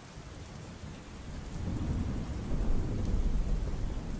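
Steady rain with a low roll of thunder that builds about a second and a half in and keeps rumbling.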